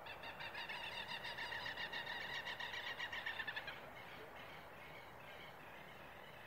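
A bird giving a rapid rattling call of many quick notes for about four seconds, then fainter for a couple of seconds more.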